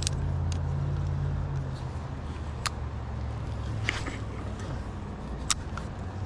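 Low, steady hum of a motor vehicle engine running nearby, with a few short sharp clicks and taps.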